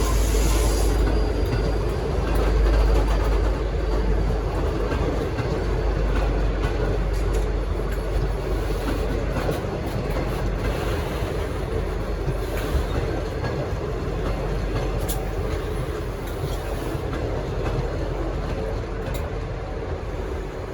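Passenger train departing at low speed, its carriages rolling past on the track with scattered wheel clicks over the rail joints and a steady rumble that slowly fades as the train draws away.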